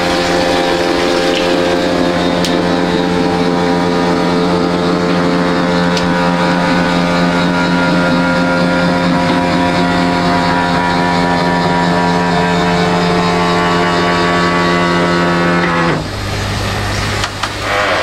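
Mabru 17,000 BTU variable-speed marine air conditioner running in its compartment under the seat, a loud, steady machine hum with a clear pitch. The hum cuts off suddenly about two seconds before the end, leaving a lower, duller hum.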